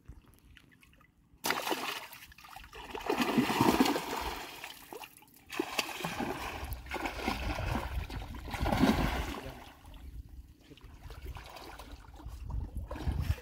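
River water splashing and sloshing close to the microphone, starting suddenly about a second and a half in and swelling and easing every few seconds, while a hooked rohu is fought on a bent rod in chest-deep water.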